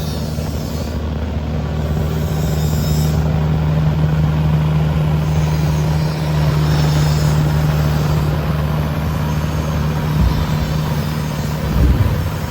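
A heavy engine running steadily with a constant low hum, and a few knocks near the end.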